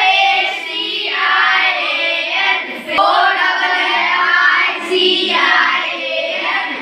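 A group of children reciting words aloud together in a sing-song chorus.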